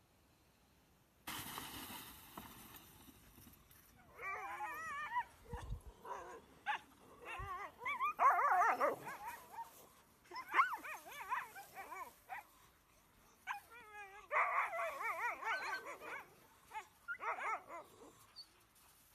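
Greenland dogs whining and howling in overlapping bursts from about four seconds in, their voices wavering up and down in pitch.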